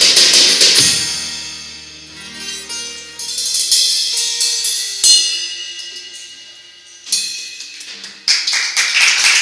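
A live band with acoustic guitar, bass and a small Millenium Youngster drum kit finishing a song. The last drum and cymbal hits give way to guitar, bass and cymbals ringing out and fading, with single accent hits about five and seven seconds in. Clapping breaks out near the end.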